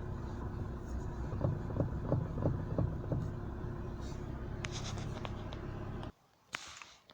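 Lada Kalina 2 engine running at idle with a run of sharp knocks from the lower steering shaft universal joint as the steering is worked. The joint's cross bearings have worn loose, a knock that is easily taken for a suspension knock. The sound cuts off suddenly about six seconds in.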